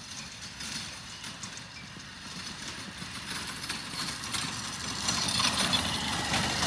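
Motorcycle engine running as it tows a roping dummy on a sled across grass, drawing nearer and growing steadily louder.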